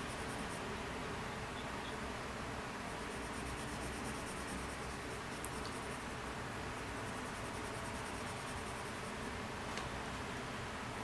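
Colored pencil shading on sketchbook paper: a steady scratching of quick, continuous strokes.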